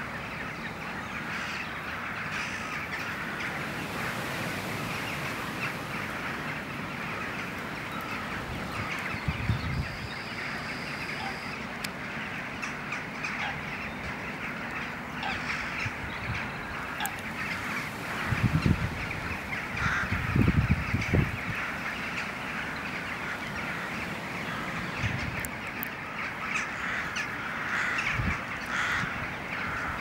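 Dense, steady chorus of many birds calling and chattering, with harsh crow-like calls among it. A few low rumbling bursts break in, the loudest about two-thirds of the way through.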